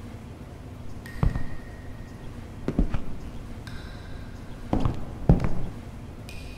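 Slow footsteps: a handful of dull thuds spaced a second or two apart, with faint thin high tones held underneath.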